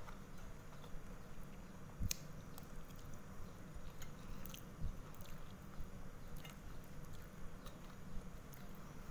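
A person chewing a mouthful of satay and rice, with a few small sharp clicks of eating now and then, the loudest about two seconds in, over a low steady hum.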